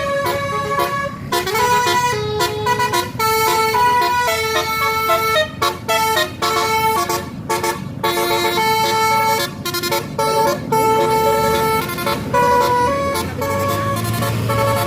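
Basuri 'telolet' multi-tone air horn on a tour bus playing a quick melody of short, stepped horn notes, one after another with brief breaks.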